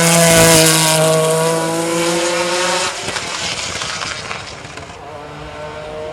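GT race car engine running at high revs, its pitch slowly falling. About three seconds in it drops sharply in loudness and fades away.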